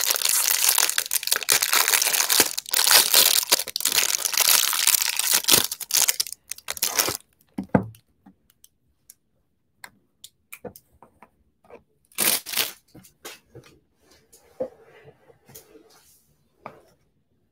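Clear plastic wrapper on a stack of trading cards crinkling and tearing as it is pulled off, loud for about seven seconds. After that, only a few faint clicks and rustles as the cards are handled, with a brief crinkle about twelve seconds in.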